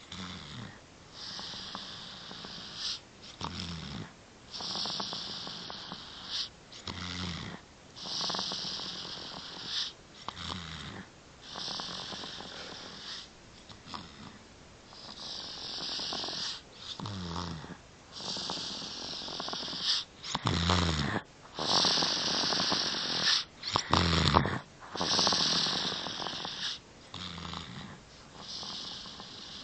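Baby snoring in sleep: slow, regular breaths, each a hissy rush of air with a short low snore, coming about every three to four seconds and loudest about two-thirds of the way through.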